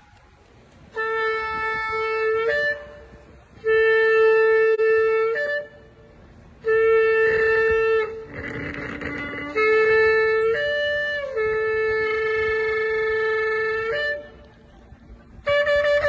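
A long curved shofar blown in five separate blasts, each held for one and a half to two and a half seconds on one steady note, most ending in a brief upward leap in pitch, with short pauses for breath between them.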